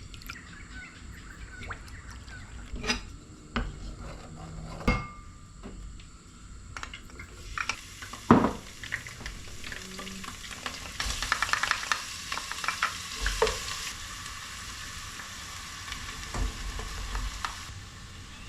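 Chilli mud crab frying in a pan, sizzling, with a utensil knocking and stirring against the pan. The sizzle builds from about halfway through and cuts off shortly before the end.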